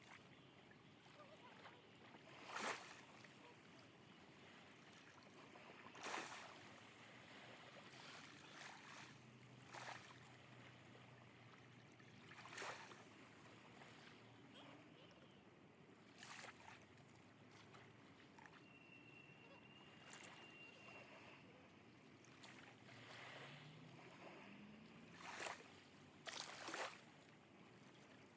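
Small sea waves washing onto the shore in soft surges every few seconds, with a faint low hum of a distant motorboat behind them.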